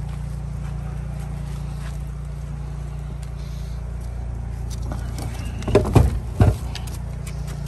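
Steady low hum of an idling engine, with a few loud clunks and rattles about six seconds in as a battery and its cables are handled inside a storage compartment.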